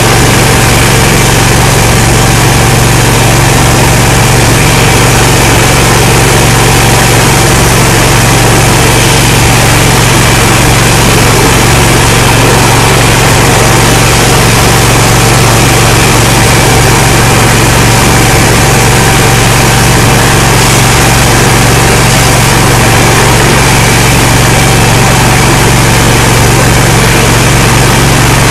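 Water jetter's engine-driven high-pressure pump running steadily: a constant low drone with a hiss over it, unchanging in pitch and level.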